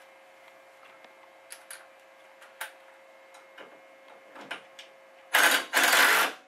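Light metallic clicks as bolts and a steel bracket are handled against the engine, then a cordless driver runs in two short bursts about five seconds in, driving the alternator bracket bolts into the water pump.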